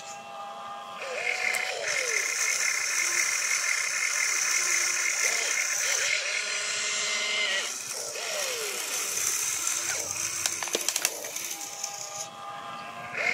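Electric motors of an RC excavator whining as it swings its upper body and works its boom and bucket, each motor's pitch falling away as it stops. A brief clatter of clicks comes about three-quarters of the way through.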